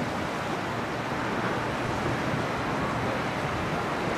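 Steady rushing of wind on the microphone mixed with lapping lake waves, with no distinct events.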